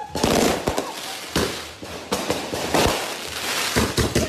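Fireworks going off at close range: a rapid series of loud bangs and crackling bursts, several a second apart.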